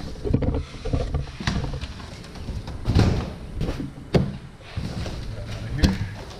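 Cardboard shipping box being handled and opened: scraping and rustling with several sharp knocks and thumps.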